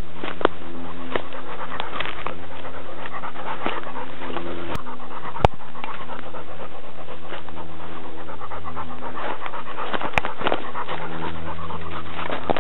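Dog panting close to the microphone, with a few sharp clicks and rustles from brush being handled.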